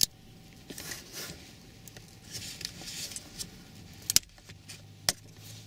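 Hard plastic clicking and rattling as a dashboard bracket is handled and pried at to remove a plastic piece from it. Sharp clicks come at the start, twice in quick succession about four seconds in, and once more about five seconds in.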